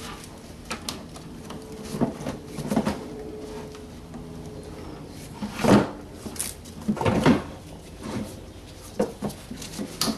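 Hard plastic knocking, rattling and scraping, a handful of separate clunks, the loudest about six and seven seconds in, as a BMW E90's screen wash tank is worked loose from behind the wheel-arch liner.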